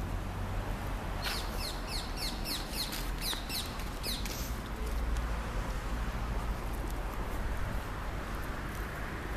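Low, steady rumble of the Mercedes C 63 AMG's 6.2-litre V8 idling. From about one to four and a half seconds in, a bird chirps a quick run of short, falling notes, about three a second.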